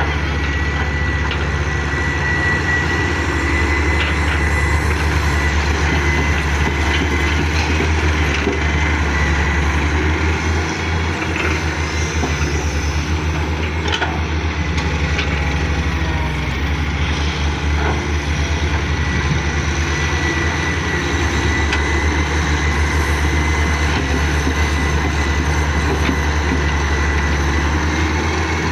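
Hitachi excavator's diesel engine running steadily with a deep drone and a thin, steady high whine. A few faint knocks come through now and then.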